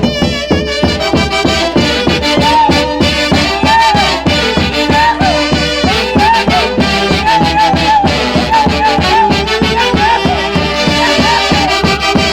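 Live dance-orchestra music: a lead melody line of short, bending notes over a steady beat.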